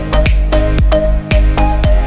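Background music with a steady beat, strong bass and a simple melody.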